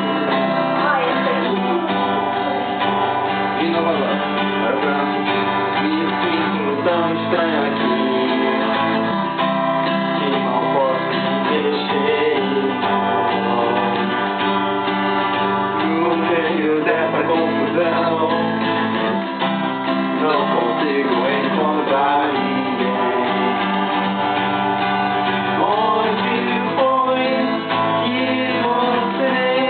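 Music: a song with acoustic guitar and a sung vocal line, playing continuously.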